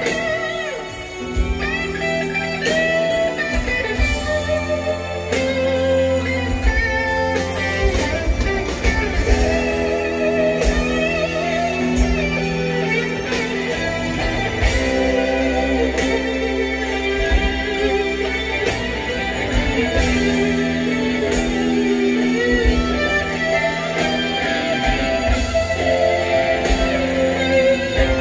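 A live rock band playing an instrumental passage: a lead electric guitar plays a solo of bending, gliding notes over steady bass and drums.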